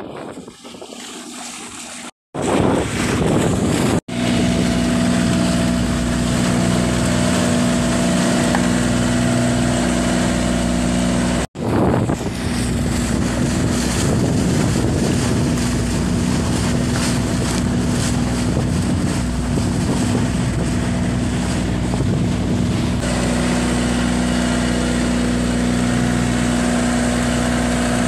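The flatboat's Mitsubishi 4DR5 four-cylinder diesel engine runs steadily under way, mixed with wind on the microphone and rushing water from the hull. The sound breaks off briefly three times in the first dozen seconds.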